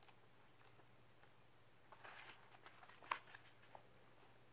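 Faint rustling of paperback book pages being leafed through by hand, with a soft tap about three seconds in.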